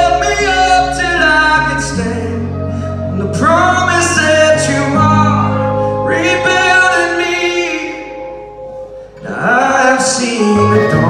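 Live band playing a slow song: a man sings a phrase at a time, with short breaks between phrases, over strummed acoustic guitar, electric guitar and bass.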